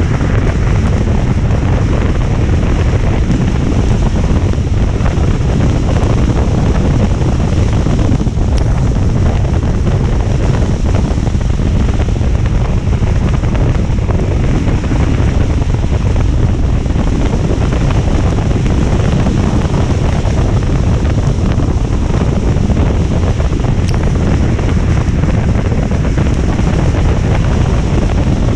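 Heavy rain: a loud, steady rushing noise, heaviest in the low rumble, without a break.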